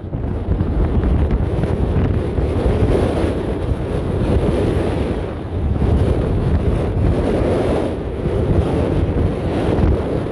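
Strong coastal wind buffeting the microphone: a loud, low rumble that rises and falls with the gusts.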